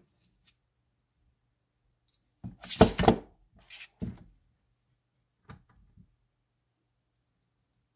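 Handling knocks of a Kiev 60 camera's metal body being moved on a tabletop: a cluster of loud knocks about three seconds in, then a few lighter clicks of small metal parts.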